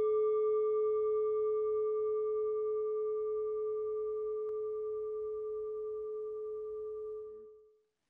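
A single struck chime: one low ringing tone with fainter higher overtones, slowly dying away and fading out near the end.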